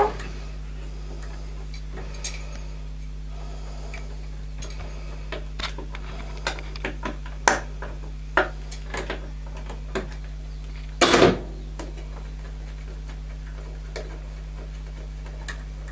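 Scattered small clicks and knocks of plastic and metal parts being handled while a thermostat and potentiometer are fitted into a gas boiler's control panel, with a brief louder rattle about eleven seconds in, over a steady low hum.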